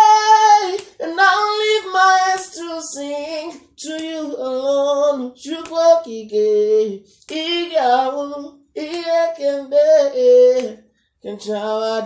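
A man singing unaccompanied in a high voice: long held notes with vibrato and sliding runs, in phrases broken by short pauses for breath.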